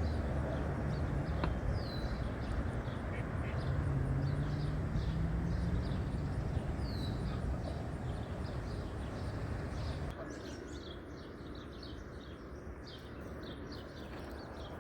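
Birds chirping and calling in short, scattered notes, some sweeping down in pitch, over a low steady rumble that drops away about ten seconds in.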